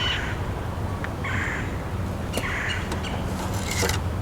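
Small birds chirping in short calls, over a steady low hum, with a brief rasping noise near the end.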